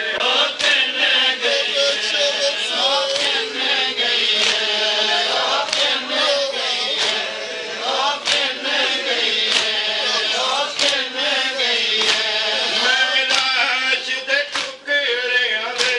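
Men chanting a noha, a Shia lament, in unison. Open hands slap on chests in matam to mark the beat, a sharp slap recurring throughout.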